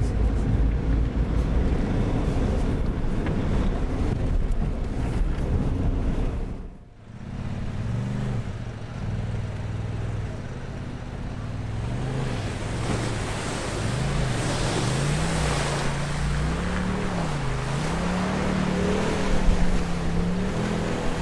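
Four-wheel-drive engine driving over an off-road track, heavily buffeted by wind noise on the microphone. After a cut, an engine labours up a hill, its pitch rising and falling several times as the throttle is worked.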